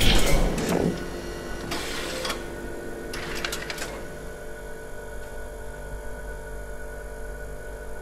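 Machine-like whirring and clicking, used as a sound effect for a contraption rising into place. It is loudest in the first second, with clusters of clicks about two and three and a half seconds in, then settles into a fainter steady hum.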